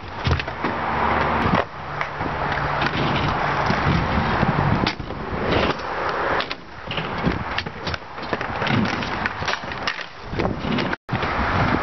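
Stunt scooter wheels rolling and rattling on concrete, with many sharp knocks and clacks of the deck hitting the ground. The sound cuts out briefly near the end.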